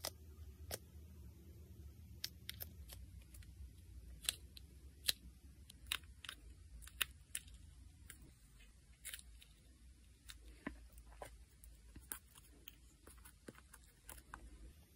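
Irregular small, sharp clicks and snips, one or two a second, from nail tools and nails being worked on close to the microphone, over a faint steady low hum.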